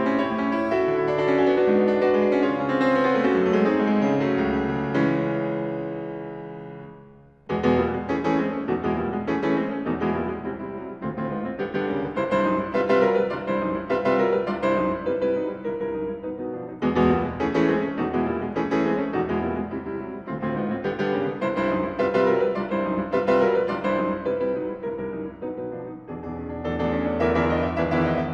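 Steinway concert grand piano played solo in classical style. A full passage gives way to a held chord that dies away almost to silence about seven seconds in. Then a loud passage of many quick notes breaks in and keeps going.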